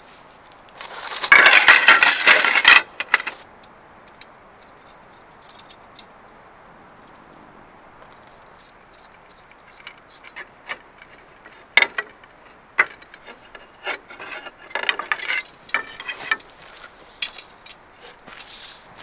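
A loud metallic jangling rattle lasting about two seconds near the start, then scattered sharp clicks and short clinks as the metal rods of a campfire tripod and its hanging chain are handled and fitted together.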